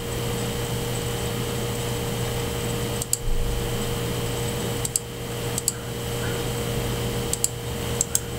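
Steady hum and hiss of a computer recording setup, with a few short mouse clicks spread across it.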